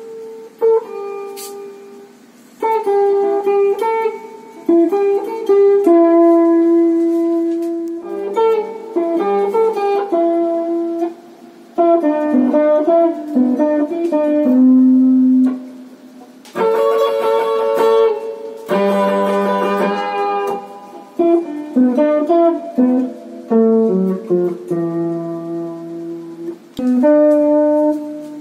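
1976 Kramer 450G aluminium-neck electric guitar with two humbucker pickups, played solo: melodic single-note lines and chords in short phrases with brief gaps, with two louder strummed chords a little past the middle.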